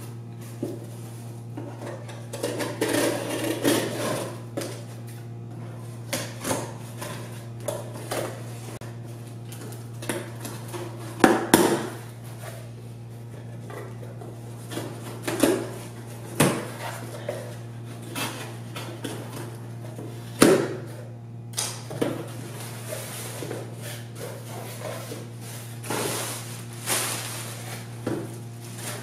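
A cardboard box being opened by hand: a knife blade slitting the packing tape, the cardboard flaps knocked and handled with scattered thumps and clicks, and near the end the rustle of plastic packaging inside the box. A steady low hum runs underneath.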